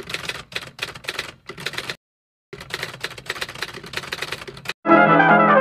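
Rapid typewriter keystroke sound effect, with a brief gap about two seconds in. Music starts near the end.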